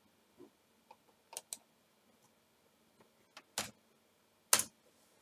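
Scattered sharp clicks from a computer mouse, about seven in all and irregularly spaced, the two loudest about a second apart in the second half.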